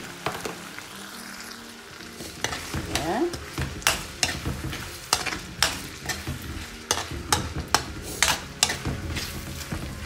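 A metal spoon stirs chunks of potato, onion and tomato frying in oil in a metal pan. The food sizzles under it, and from about two seconds in the spoon clacks and scrapes against the pan again and again.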